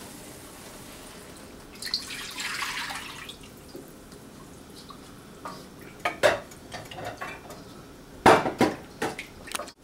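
Beef broth poured into a wok, a splashing pour lasting about a second, followed by scattered clinks and knocks of a container or utensil against the pan, the loudest knocks near the end.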